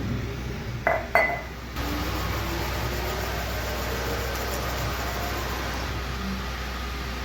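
Two sharp, ringing glass clinks about a second in, then a steady, even noise with a low hum takes over.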